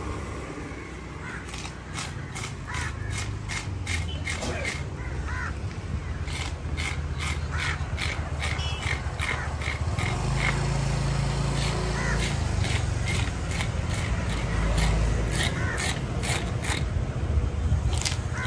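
A wooden-handled fish scaler raking scales off a large grouper in quick, repeated rasping strokes, about two to three a second, in runs with short pauses.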